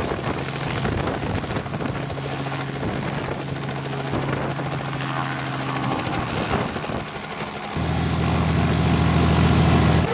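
Robinson R44 helicopter hovering low and setting down on its skids, main rotor and engine running with a steady beat. About eight seconds in the sound gets louder and fuller.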